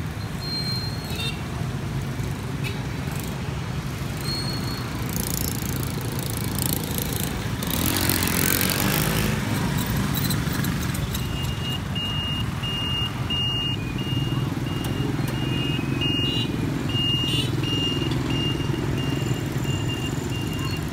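Busy street traffic, with motorcycles and cars driving past and their engines running. One vehicle passes close about eight seconds in. A thin high tone comes and goes in the second half.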